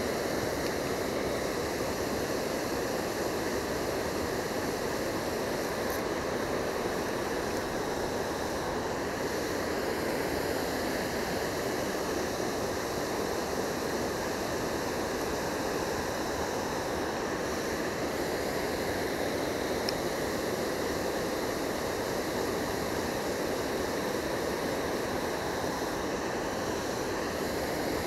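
Steady rushing of river water spilling over a low concrete weir, an even unbroken sound.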